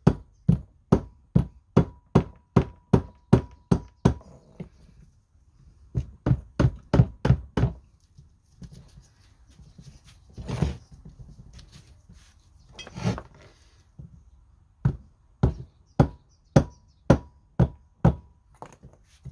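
Rubber mallet tapping on a Tongsheng TSDZ2 mid-drive motor to ease its tight-fitting motor core out of the casing: runs of steady knocks, about two a second, with pauses between the runs.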